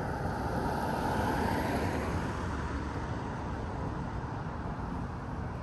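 Steady rumble of passing vehicles, swelling slightly over the first second or two.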